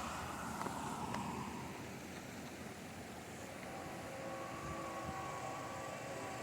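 Union Pacific diesel freight locomotive approaching, its air horn chord fading out in the first second, then the train's rumble, with the horn chord coming back in faintly near the end.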